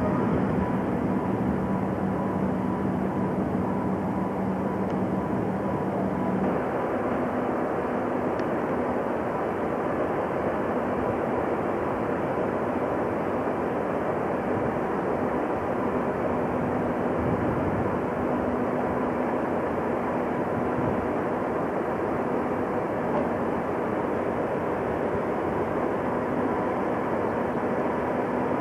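Steady drone of heavy machinery with a constant hum running through it; a lower hum drops out about six seconds in.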